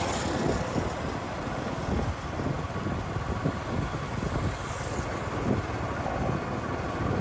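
Wind buffeting the microphone of a moving rider, a steady fluttering rumble over road and traffic noise.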